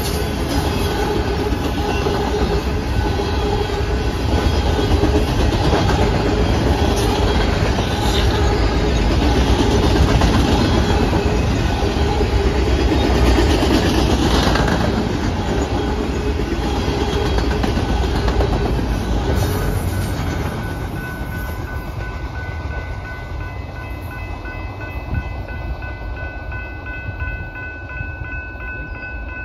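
Norfolk Southern manifest freight train of boxcars rolling past a grade crossing, a loud continuous rumble of wheels on rail. About 20 seconds in the last cars go by and the rolling noise fades, leaving the crossing signal's bell ringing as steady high tones.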